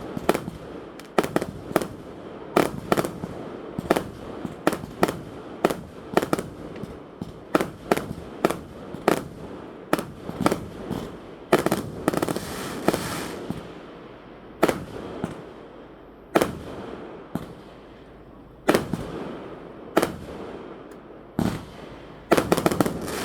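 Aerial fireworks shells bursting: a long string of sharp bangs, about one to two a second, with crackling after the bursts around the middle and a quick cluster of bangs near the end.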